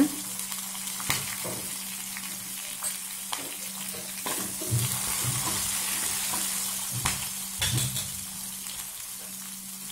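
A tadka of mustard seeds, dal, spices, cashews and slit green chillies sizzling in hot oil and ghee in a small aluminium kadai. There is a steady hiss with scattered clicks and a few light knocks as it is stirred.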